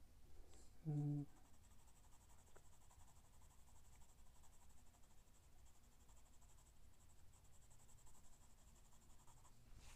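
Faint scratching of a graphite pencil shading on drawing paper, with a short hummed voice sound about a second in.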